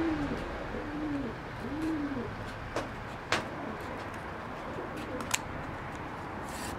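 A pigeon cooing, a few low rising-and-falling notes repeated under a second apart, which stop about two seconds in. Then three sharp snips of scissors cutting cardboard.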